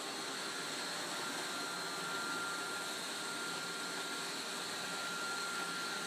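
iRobot Roomba 530 robot vacuum running across a hardwood floor: a steady whir with a thin high whine.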